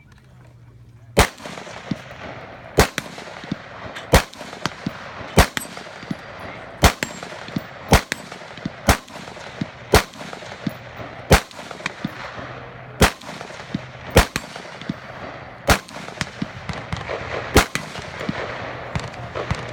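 Rifle shots fired in a steady string: about thirteen loud, sharp cracks, one every second or so, with fainter shots in between.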